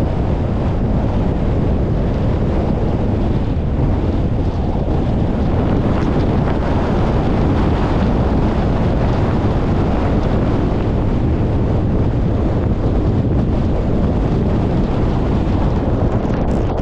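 Wind blowing across the microphone, a steady loud rush with most of its weight low down.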